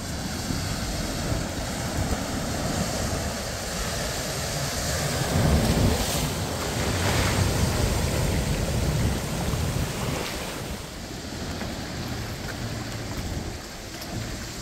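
Pickup truck ploughing through deep floodwater, its bow wave rushing and splashing, growing loudest as it passes close about six to nine seconds in, with the engine running underneath.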